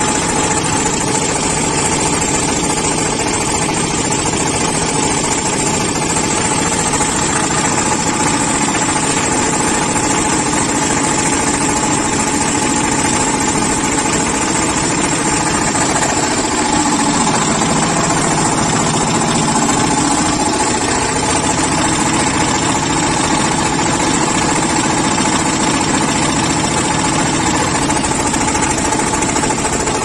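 A concrete mixer's single-cylinder diesel engine running steadily, with a brief dip and recovery in its low note about halfway through.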